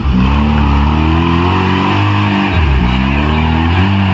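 Off-road jeep's engine revving under load as it works through deep mud, the revs rising and falling with a sharp dip and pick-up about two and a half seconds in.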